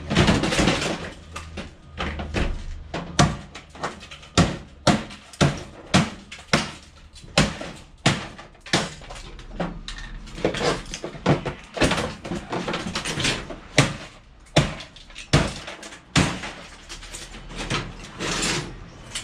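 The sheet-metal casing of a scrap white-goods appliance being struck again and again to break it open and get at its electric motor: more than twenty sharp metal bangs, irregularly spaced, about one a second or faster.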